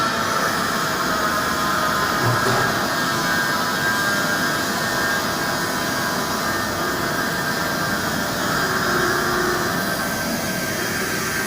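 Hartford CNC milling machine running during a two-dimensional milling job: a steady, even machine noise carrying several high whining tones that waver slightly.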